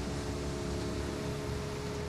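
Federal Signal RSH-10A Thunderbeam outdoor warning siren sounding its steady Alert signal at close range: a held chord of several steady tones over a heavy rush of noise.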